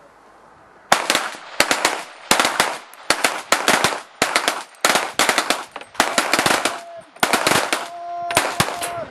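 Eight pistols fired at once, one-handed with the support hand, starting about a second in: a dense run of sharp, overlapping shots in quick clusters. A steady pitched tone sounds near the end.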